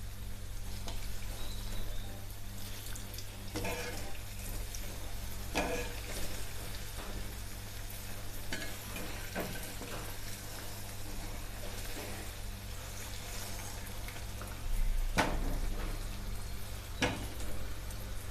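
Balls of wheat flour, banana and jaggery batter sizzling steadily as they deep-fry in hot oil, with a few sharp clinks of a utensil against the pan and a steady low hum underneath.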